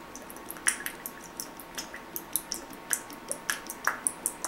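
Tabasco sauce being shaken out of a small glass bottle into a glass dish: quick, irregular drips and splats, about four or five a second, along with hand slaps on the bottle.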